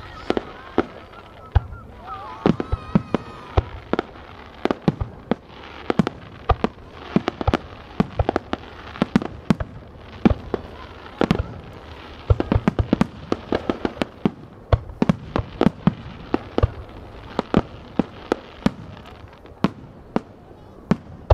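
Aerial fireworks shells bursting: a rapid, irregular string of sharp bangs, several a second, without a break.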